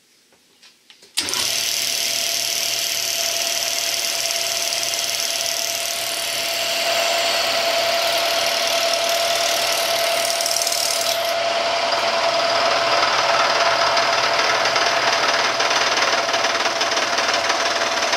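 Bridgeport milling machine's end mill taking a climb-milling cut through a slot in an aluminum block at 700 RPM: a loud, steady cutting noise over a steady machine hum. It starts abruptly about a second in.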